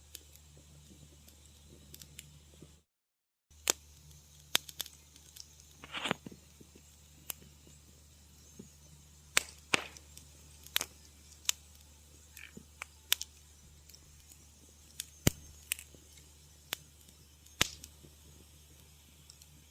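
Wood fire crackling in a fireplace: irregular sharp pops and snaps, one with a short hiss about six seconds in, over a steady low hum. The sound drops out completely for about half a second around three seconds in.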